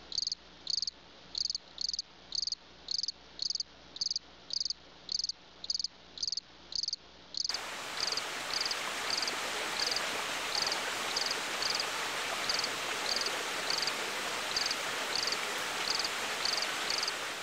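Insect chirping in a steady rhythm, about two short high chirps a second. About seven seconds in, a steady rushing hiss suddenly joins underneath, and the chirps carry on a little less evenly.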